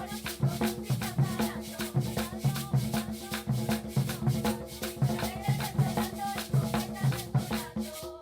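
Percussion music: drums beating a steady rhythm with shakers rattling over it, and a held low tone underneath.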